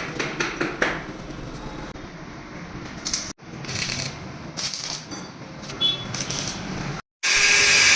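Steel pieces clinking and knocking in irregular light strikes, broken by two abrupt cuts. Near the end a loud, steady rushing noise starts suddenly.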